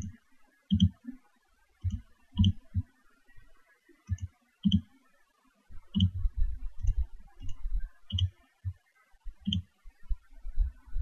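Computer mouse button clicking: about ten sharp single clicks at irregular intervals, each with a dull knock beneath it, and a denser run of soft knocks about six seconds in.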